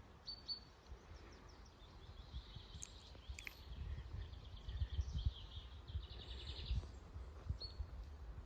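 Small songbirds singing, with short chirps and a fast trilled phrase in the middle, over wind gusting across the microphone.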